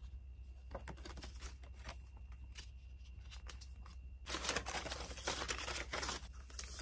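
Paper envelopes and sheets being handled: light rustles and taps at first, then from about four seconds in a dense, louder crinkling as a paper wrapping is opened.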